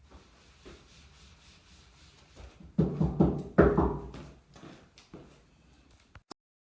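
Rubbing and knocking, loudest in a cluster of strokes about three seconds in, then fading. The sound cuts off abruptly near the end.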